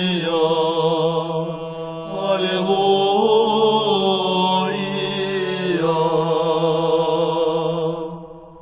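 Orthodox church chant: a voice singing long, drawn-out notes that step slowly up and down in pitch, fading away near the end.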